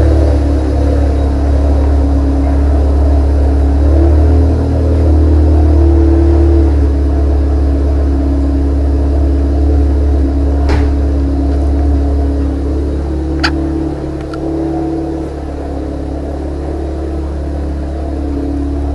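2014 SEAT Leon Cupra 280's turbocharged 2.0-litre four-cylinder idling after a cold start through a non-resonated Cobra cat-back exhaust: a steady deep drone that rises slightly in pitch for a few seconds, then eases a little in the second half. Two sharp clicks come a few seconds apart past the middle.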